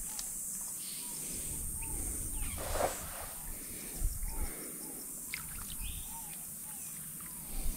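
A steady high-pitched insect drone with a quick series of short, repeated animal calls, and a brief louder noise about three seconds in.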